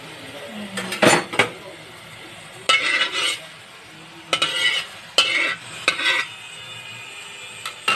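Metal ladle scraping and clanking against the inside of an empty metal wok as the wok heats, in a series of about six short strokes.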